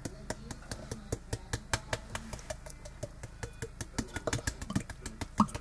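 Quick, irregular taps, about three or four a second, as an upside-down bottle of chili sauce is smacked on its base to shake the thick sauce out.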